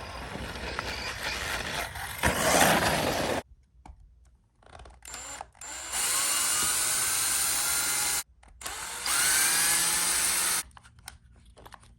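JLB Cheetah 1/10 RC truck's brushless motor and drivetrain run up under throttle with a grinding crunch, a sign of its cracked differential and two popped bearings. A rough run first, then after a pause two steady runs of about a second and a half, the second rising in pitch.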